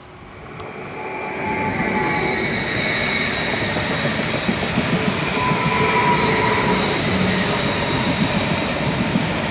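A DB Regio Stadler Flirt electric multiple unit, two units coupled, rolling past close by. Its wheels rumble on the rails under steady high whining tones, and the sound swells over the first second or so and then holds.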